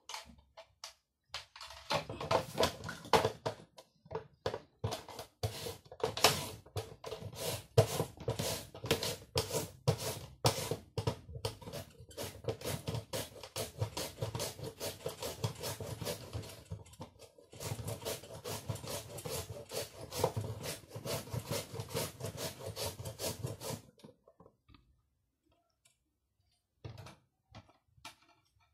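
A carrot rubbed rapidly back and forth over the julienne blade of a plastic mandoline slicer: a long run of quick rasping strokes with one short break, stopping a few seconds before the end, followed by a few light clicks.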